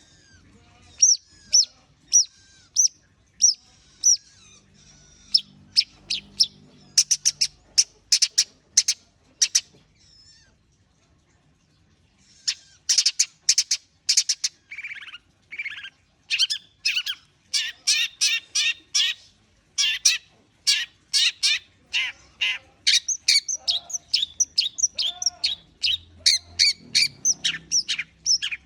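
Long-tailed shrike (cendet) singing: runs of short, sharp, high notes, a gap of about two seconds near the middle, then faster, denser phrases.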